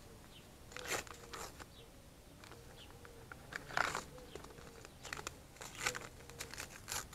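Paper seed packet crinkling and rustling as it is handled: several short crackly rustles, the loudest about four seconds in.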